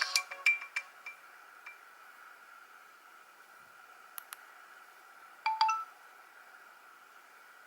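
A Nokia 113 mobile phone's ringtone ends, its last few notes dying away within the first second or two. Then come two faint clicks and, about five and a half seconds in, a short two-note beep.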